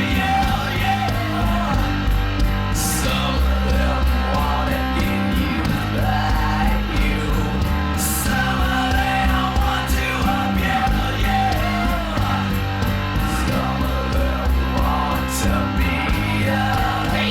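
Rock song with guitars, drums and a singing voice, playing as a music track.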